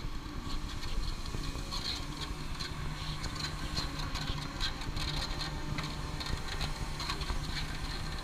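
Clark forklift engine running steadily at idle, with a scatter of light clicks over it through the middle.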